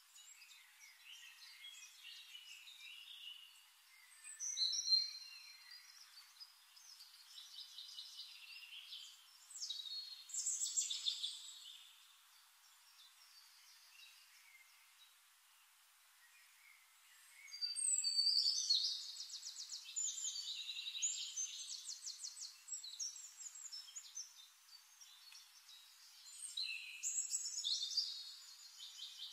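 Songbirds singing: chirps and rapid trills in bouts, loudest about five, ten and eighteen seconds in and again near the end, quieter between.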